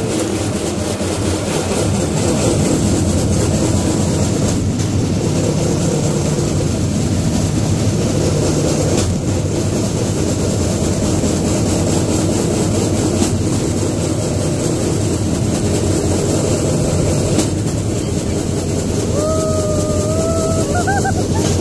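Steel wheels of a pedal rail bike rolling along railway track: a steady rumble with occasional clunks. A short wavering tone comes in near the end.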